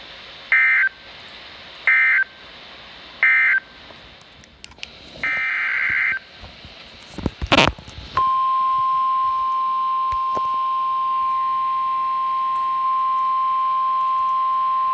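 Three short warbling data bursts of the Specific Area Message Encoding end-of-message code, closing a weather alert, then one longer data burst and a couple of clicks. From about eight seconds in, the steady single-pitch NOAA Weather Radio warning alarm tone sounds, announcing a new warning.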